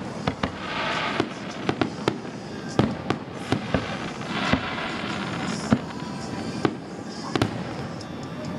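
Aerial fireworks shells bursting in an irregular series of sharp bangs, a dozen or more, some louder than others.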